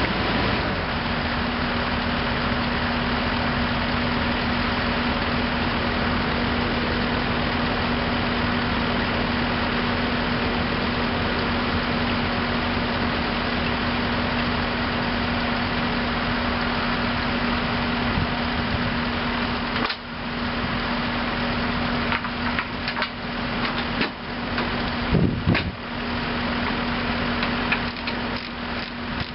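Heavy diesel engine running steadily at a constant speed with an even hum. From about two-thirds of the way in, it is broken by irregular clunks and knocks.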